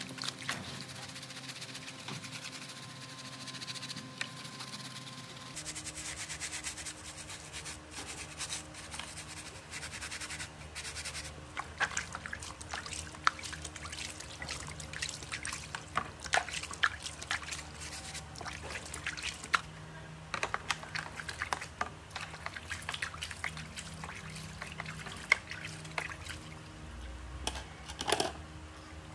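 Sponge scrubbing a computer circuit board in a tray of soapy water: wet rubbing and sloshing with many short splashes and taps.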